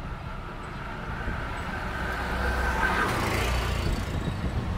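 Small three-wheeled auto-rickshaw (bajaj) engine approaching and passing close by, growing louder to a peak about three seconds in and then easing off.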